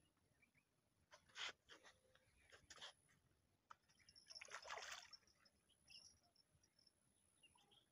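Faint, brief water splashes from a small hooked fish thrashing at the surface as the line is pulled in, the longest about four to five seconds in, with a few shorter rustles and splashes before it.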